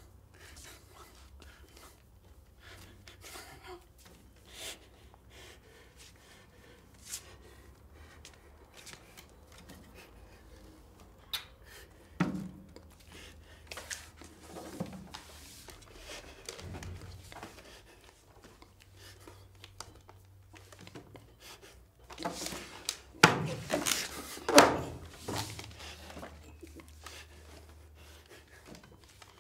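Scattered light knocks, taps and rustles of a man handling a wooden chair and table, with a cluster of louder thumps about 23 and 25 seconds in.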